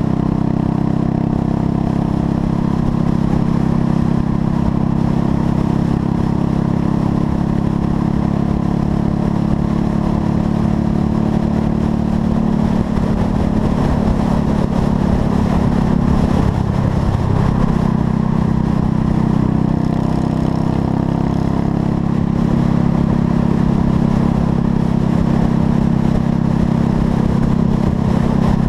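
Buell Blast's single-cylinder motorcycle engine running steadily under way, on a freshly re-jetted carburetor. The engine note dips briefly a little past the middle, then settles back to a steady drone.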